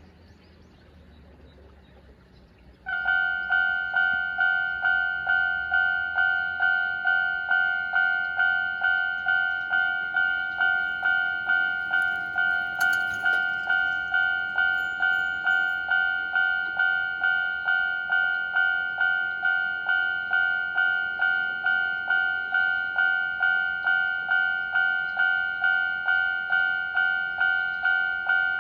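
Japanese railway level-crossing alarm of the older, high-pitched standard type, starting about three seconds in and dinging steadily about twice a second.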